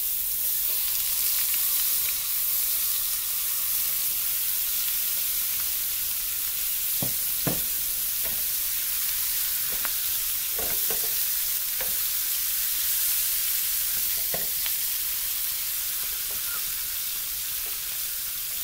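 Hilsa fish pieces sizzling steadily as they shallow-fry in mustard oil in a frying pan, with a handful of light knocks against the pan in the middle stretch.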